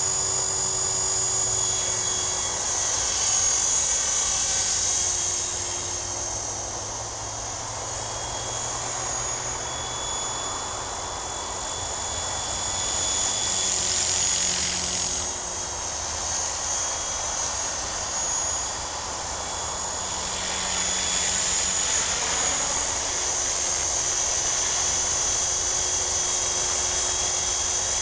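Sonix SX 450 SE radio-controlled helicopter in flight: a steady high-pitched motor and gear whine over the rotor's hum, growing louder and softer over several seconds at a time.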